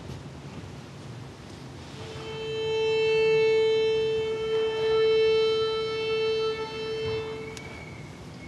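One long, steady musical note at about the A above middle C, held for about five seconds, swelling and then fading away.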